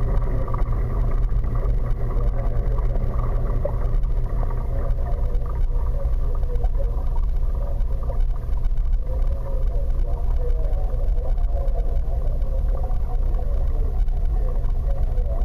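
Steady low hum and rumble of aquarium pumps and circulating water, unchanging throughout.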